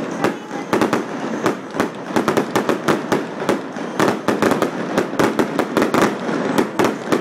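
Fireworks going off in rapid succession: a dense run of sharp bangs and crackling pops, several a second.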